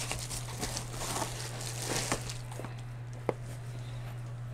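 Rustling and handling of a padded paper mailer as a small cardboard box is slid out of it, with a single sharp tap a little over three seconds in, over a steady low hum.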